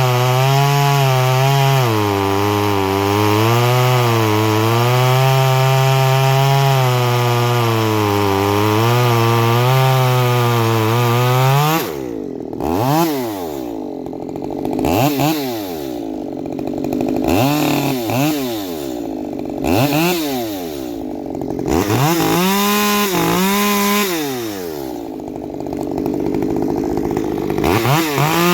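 Ported Stihl MS194T two-stroke top-handle chainsaw running at high revs for about twelve seconds, its pitch wavering as if cutting wood. It then drops toward idle and is revved up and down repeatedly. It is running with the oil pump not oiling the chain, which the owner finds leaves the bar hot and the saw unable to rev properly.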